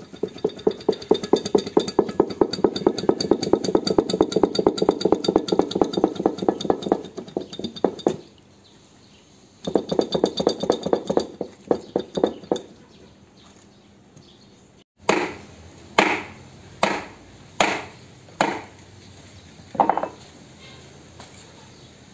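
Rapid metallic clicking of a hand ratchet wrench working the drive pinion nut of a truck differential, in two long runs. Then six sharp hammer blows on metal, each with a short ring.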